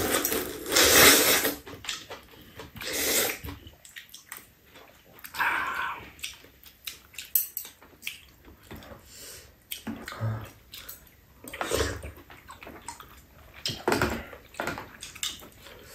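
Noodles being slurped from bowls in several noisy bursts, the loudest in the first second and a half, with quieter eating and utensil sounds between.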